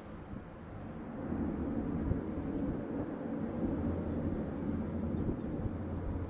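Airbus A400M's four turboprop engines running with a low, steady drone as the aircraft rolls on the runway, growing louder about a second in.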